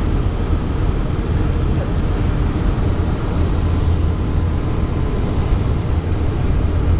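Steady cabin drone of a Boeing 757-200 airliner on approach, its jet engine and rushing airflow heard from a seat over the wing, with a strong low rumble.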